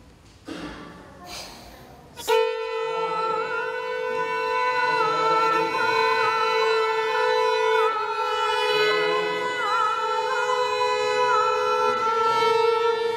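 Small ensemble rehearsing: after a few soft knocks, the instruments come in together about two seconds in on several loud held tones, a steady low note with a higher line wavering and sliding above it.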